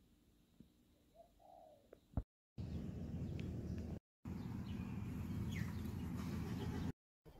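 Wind buffeting the phone's microphone outdoors, a loud low rumble that starts and stops abruptly at the edits, with a few faint bird chirps over it. Before that, a quiet stretch with a short soft coo-like call and a click.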